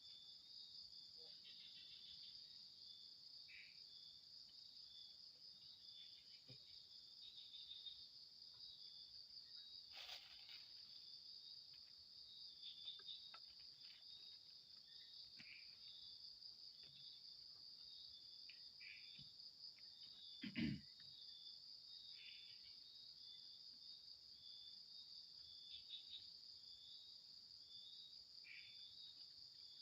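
Faint, steady high-pitched chirring of night crickets in a pulsing chorus. A single sharp knock sounds about two-thirds of the way through, and a fainter click about a third in.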